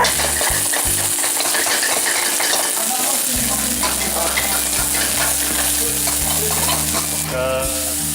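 Massaman curry paste frying in hot oil in a pan over a high flame, sizzling steadily while it is stirred.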